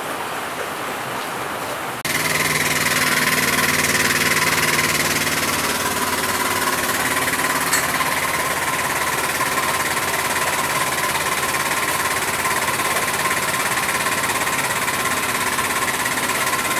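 A steady hiss, then about two seconds in an abrupt switch to an engine running steadily at idle, with an even, unchanging hum.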